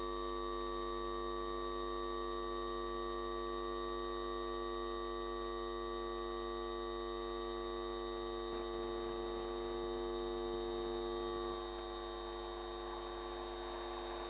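A steady electrical hum made of several fixed tones, unchanging, with no chuffing to be heard. Near the end a faint rushing noise of the approaching train begins to rise.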